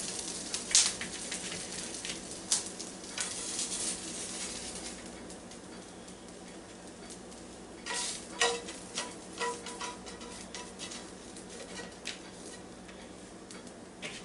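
Hash browns being scraped out of a hot Copper Chef square pan with a spatula: repeated scrapes and taps of the spatula against the pan over the sizzle of the still-hot food. A few brief ringing clinks come about eight to nine seconds in.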